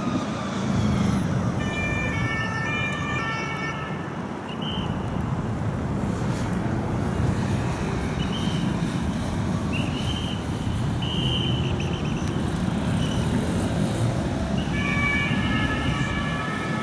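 Police motorcycle's French two-tone siren sounding its alternating two-note call about two seconds in and again near the end, with a few short high siren notes in between. Steady traffic and engine rumble underneath.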